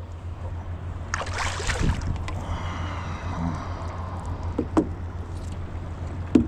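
Water splashing as a striped bass is lifted out beside the boat, about a second in, over a steady low drone. Two short sharp knocks come near the end as the fish is handled.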